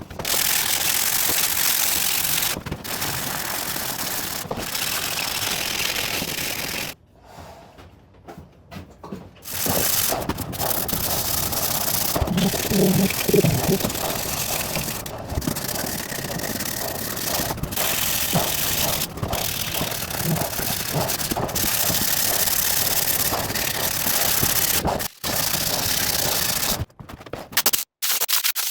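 Sandpaper sanding the repaired wooden chair leg, a steady scratching hiss that stops about seven seconds in and starts again a couple of seconds later.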